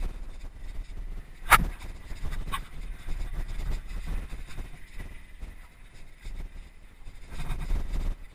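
Full-suspension mountain bike (Trek Remedy 8) running fast down a rough trail: a continuous rumble and rattle of tyres, chain and frame over dirt and wooden boardwalk, with two sharp knocks of hard impacts about one and a half and two and a half seconds in.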